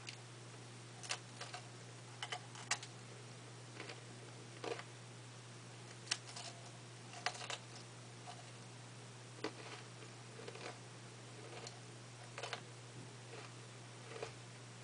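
Close-up chewing and crunching of a Drumstick ice cream's crisp cone: irregular, sharp little crunches and mouth clicks, roughly one or two a second, over a steady low hum.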